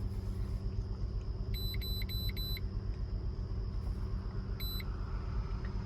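Honda 3.5-litre V6 idling steadily while misfiring on cylinder 3. Four quick electronic beeps come from a handheld scan tool about a second and a half in, then a single beep near the end.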